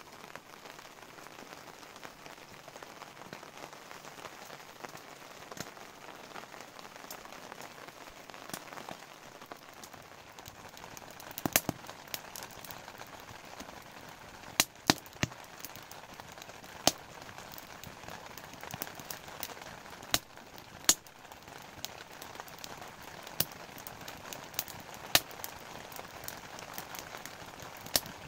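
Steady rain pattering, with a dozen or so sharp pops and cracks scattered through it, most of them in the second half.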